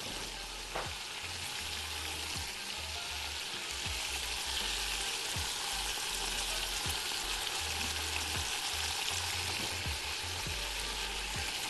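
Chunks of beef searing in hot butter in a pot: a steady sizzle, with a few light knocks as pieces are laid in.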